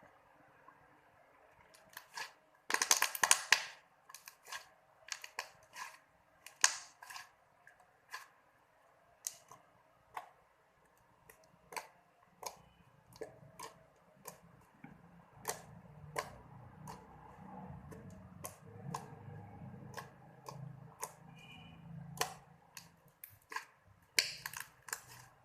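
Two-colour slime being squeezed and worked by hand, giving a string of sharp clicking pops from trapped air, with dense flurries of crackling about three seconds in and near the end.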